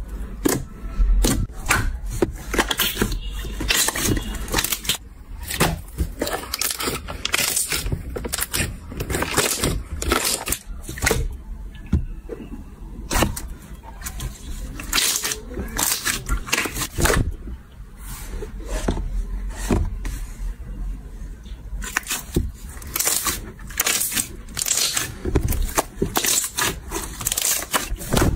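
Slime being squeezed, poked and stretched by hand: a dense, irregular run of wet clicks, pops and squelches from air pockets bursting, some louder than others.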